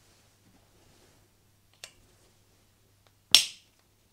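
Screwdriver working the screws of a small cover on an aluminium engine cylinder head: a faint tick about two seconds in, then one sharp metallic click near the end.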